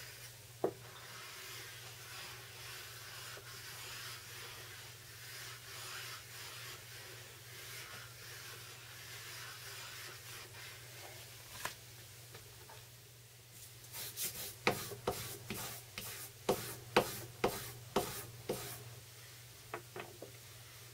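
Kanna (Japanese plane) blade being honed on a wet sharpening stone: a steady gritty rubbing as the cutting edge is worked back and forth under the fingers. In the last few seconds comes a quick run of about a dozen sharp clicks.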